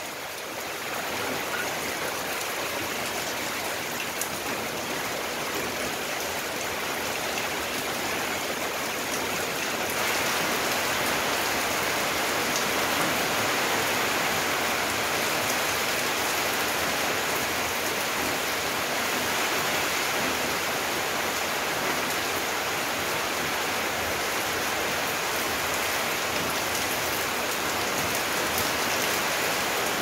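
Steady rain falling on plants and wet pavement, growing heavier and louder about ten seconds in.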